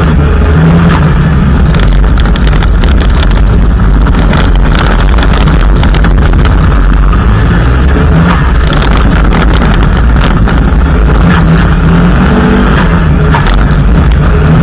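Mitsubishi Lancer EX turbo rally car's turbocharged four-cylinder engine running hard at speed on a gravel road, its pitch rising and falling with the throttle, with a constant roar of tyres on gravel and many sharp pings of stones striking the car.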